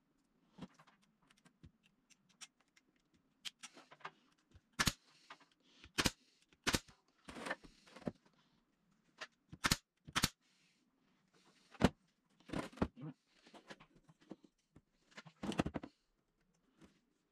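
Pneumatic brad nailer shooting nails into wood: several sharp clacks at irregular intervals, some followed by a short hiss of air.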